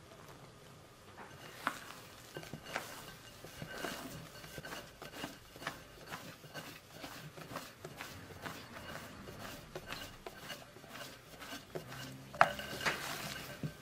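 Spatula folding thick sponge-cake batter in a glass mixing bowl: wet stirring with repeated scrapes and taps against the glass. About twelve seconds in comes a sharper knock that sets the bowl ringing briefly.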